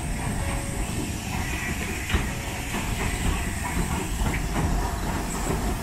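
Steam train running along the line: a steady rumble and hiss with occasional knocks from the wheels and running gear, the sharpest about two seconds in.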